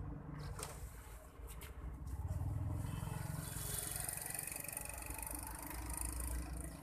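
Spinning reel cranked fast to bring in a hooked fish, a steady whirring from about two seconds in, over a low steady rumble.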